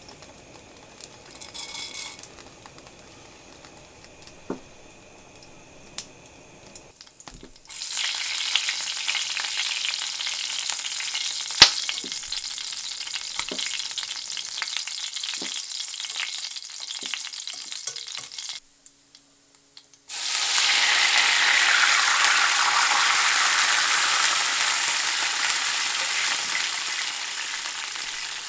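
Food frying in hot oil in a pan, a steady sizzle that starts about a quarter of the way in, with a few sharp clicks of a utensil. It breaks off briefly and comes back louder, then slowly eases.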